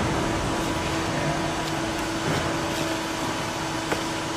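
CNC oscillating knife foam cutting machine running: a steady machine hum with one held tone, and a single light click near the end.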